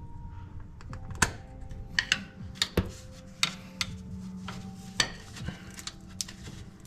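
Irregular sharp clicks and clanks of hand tools and small metal parts being handled, about a dozen in all, the loudest about a second in and again near five seconds in.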